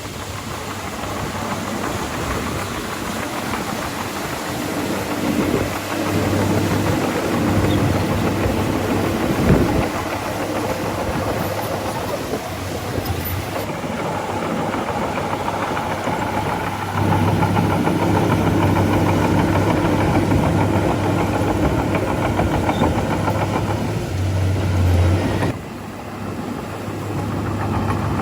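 Bulldozer engines running steadily, with a low engine hum; the engine note changes abruptly a few times, around the middle and near the end.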